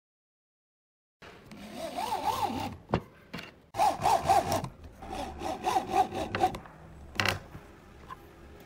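Power drill driving screws into a pine board, its motor whining under load in three runs with the pitch wavering up and down, starting after about a second. A single sharp click follows near the end.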